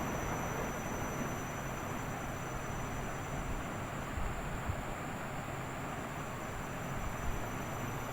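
Washing machine running: a steady low rumble and hiss with no breaks.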